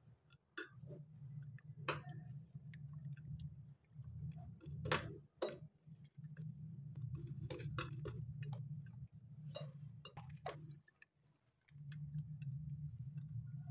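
A metal fork clinking and scraping against a glass bowl as eggs are beaten into chopped vegetables, in quick irregular taps. A low hum runs underneath and drops out for about a second near the end.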